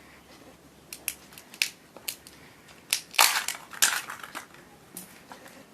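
Plastic wrapping of a toy egg crinkling and crackling as it is handled and opened, in short irregular bursts with the loudest cluster about three seconds in.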